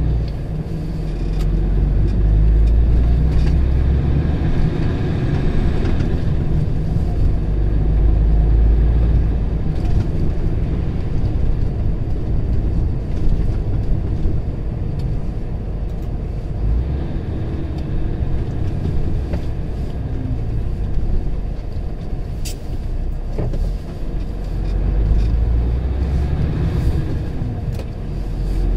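Engine and road noise heard from inside the cab of a moving vehicle: a steady low rumble that swells and eases as it drives.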